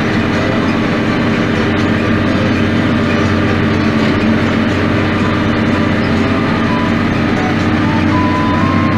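Massey Ferguson 7180 tractor's diesel engine running at a steady working speed while pulling a 16-row planter, heard from inside the cab as a loud, even drone.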